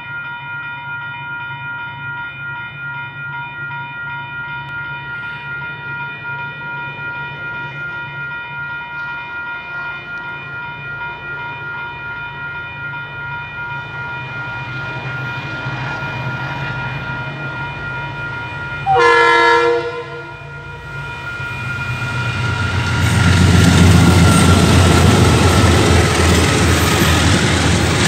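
Level crossing warning bell ringing in a quick repeating pattern. About nineteen seconds in, the train's horn sounds one blast of about a second and a half, then the train's rumble builds and it passes over the crossing with a steady clatter, the loudest part.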